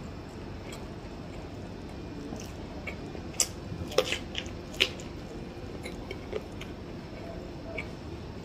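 Biting kernels off a boiled ear of corn and chewing them: a few small wet clicks of chewing, with three sharp, loud bites a little past the middle.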